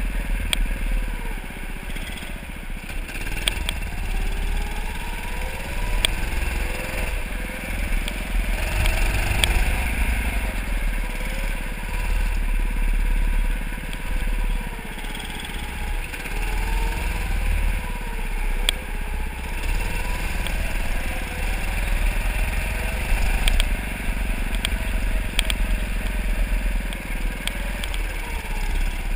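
Go-kart motor running through laps, its pitch rising and falling as the kart speeds up and slows for the turns, over a steady low rumble from the moving kart.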